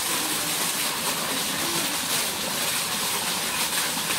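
A fountain jet splashing steadily down into a pond, an unbroken rushing hiss.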